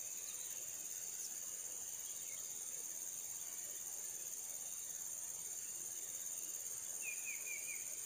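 Steady high-pitched drone of insects. About seven seconds in, a bird gives a quick run of four short chirps.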